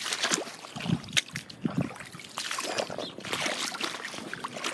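Footsteps sloshing through shallow muddy floodwater, the shoes sinking into soft mud beneath, in a series of irregular splashes with a couple of duller low thuds.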